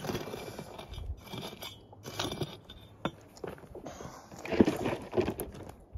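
Prospecting pick striking and scraping into stony gravel as a target is dug out, in irregular blows; the loudest blows come about four and a half and five seconds in.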